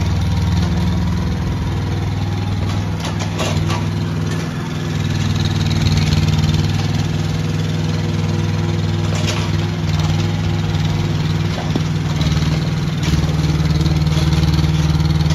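Yanmar mini excavator's diesel engine running steadily, with a few short knocks about three seconds in and again near the middle.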